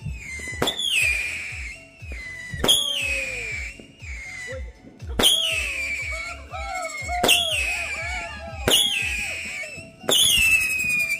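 Whistling fireworks going off in a series of about six shots, each a sharp pop followed by a shrill whistle that falls in pitch over about a second. In the middle of the series, lower warbling whistles overlap.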